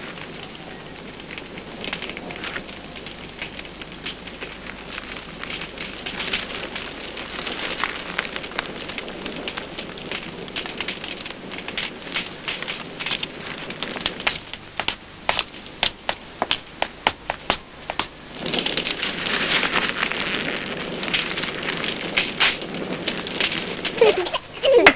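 Wood fire crackling and popping in a hearth, with a quick run of sharp pops about two-thirds of the way through and a short hissing rush of flame soon after.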